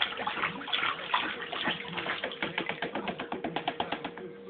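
Baby splashing the water in a plastic baby bathtub with her hands: a quick, irregular run of small splashes that stops shortly before the end.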